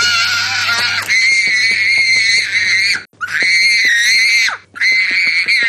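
A person screaming in long, very high-pitched held screams, three in a row, with short breaks for breath between them.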